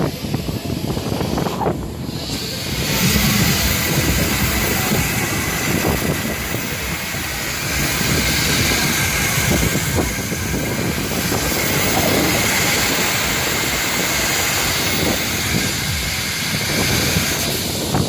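Steady loud rush of wind and ride machinery heard from a gondola of a Wieser Hurrican plane ride as it circles on its arm. The rushing swells and eases in waves.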